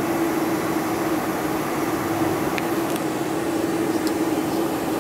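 Steady drone inside the cabin of a Boeing 747-400, its General Electric engines running evenly, with a steady low hum and a few faint clicks partway through.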